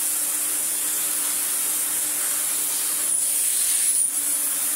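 Restored 1983 Electrolux Z350 Electronic cylinder vacuum cleaner running below full power while its floor head is pushed over carpet. It makes a steady rushing hiss of suction with a faint hum, and a high whistle that grows louder for about a second starting about three seconds in.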